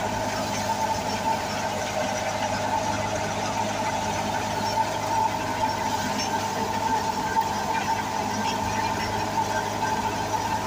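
Wheat thresher running at a steady speed as bundles of wheat are fed into it: a continuous, even machine drone with a strong hum.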